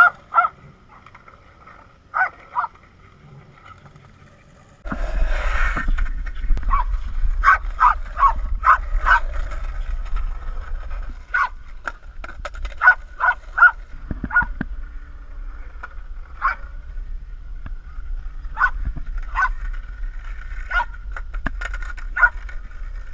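Small dog barking in many short, excited yaps at irregular intervals. A steady low rumble runs underneath from about five seconds in.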